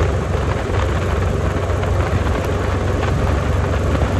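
Kawasaki Vulcan 1700 Vaquero's V-twin engine running steadily under way, a low even rumble with a hiss of wind and road noise over it.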